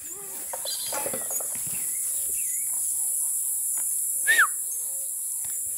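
Steady, high-pitched insect drone with scattered bird chirps, and one loud falling bird call about four seconds in.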